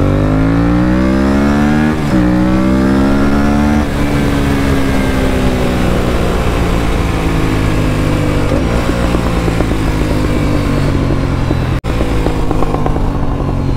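Aprilia RS457's parallel-twin engine through an aftermarket stainless-steel full-system exhaust, accelerating hard. The pitch rises, drops at a gear change about two seconds in, and climbs again; then it falls slowly for several seconds as the bike slows. The sound breaks off briefly near the end and then runs on.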